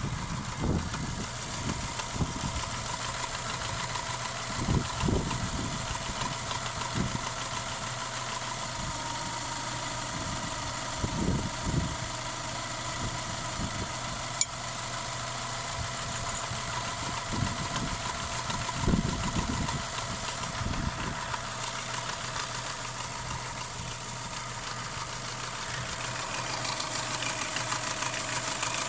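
Subaru boxer engine idling with a knock from a failed hydraulic timing-belt tensioner.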